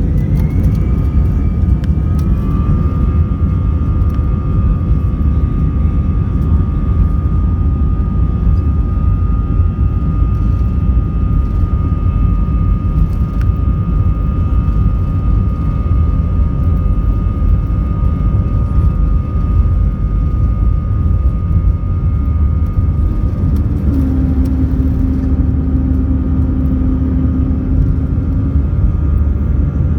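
Airbus A319 jet engines at takeoff thrust, heard from inside the cabin: a steady deep rumble under a high whine that rises over the first couple of seconds and then holds level. A lower steady hum joins for a few seconds near the end.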